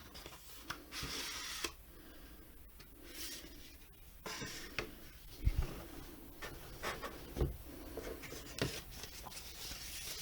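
Cardboard box and kit contents being handled: scattered rustling and rubbing, with a few soft knocks.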